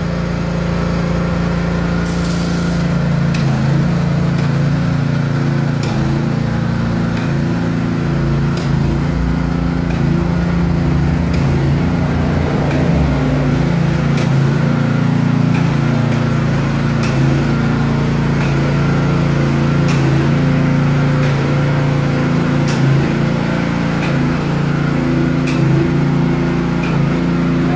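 Small petrol engine of a walk-behind airless line-marking machine running steadily and driving the paint pump while the machine sprays a line, with light clicks every few seconds.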